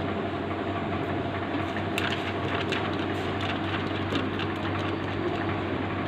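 Steady mechanical running noise with a low hum and a few light clicks.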